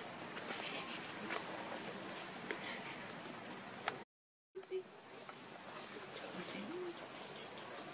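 Outdoor ambience: a steady high-pitched insect whine over a background hiss, with scattered short rising chirps. The sound cuts out completely for about half a second midway.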